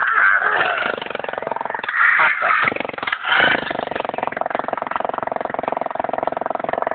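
Electric hammer drill running steadily with rapid hammering into concrete rubble. Three louder noisy bursts come in the first four seconds, at the start, around two seconds in and around three seconds in.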